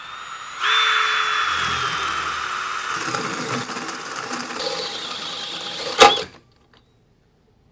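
Cordless drill driving a hole saw through the metal rear torque tube housing, cutting with a steady, high-pitched squeal. A sharp snap comes about six seconds in, and the drill stops just after.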